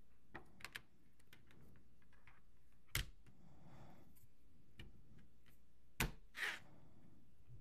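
An iPad mini 6 being snapped into a folio case. A few light clicks come first, then two sharp snaps about three seconds apart as the case's corners click onto the tablet, with a brief scrape just after the second snap.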